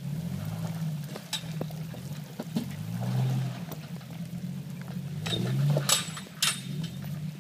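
Jeep Wrangler TJ engine running low as it crawls over wet rocks, revving up twice. Several sharp knocks and clatters come near the end.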